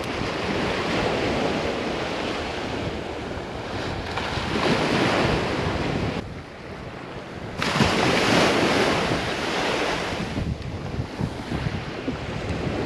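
Small Gulf surf washing up the beach, with wind blowing on the microphone; the noise swells and eases in long surges.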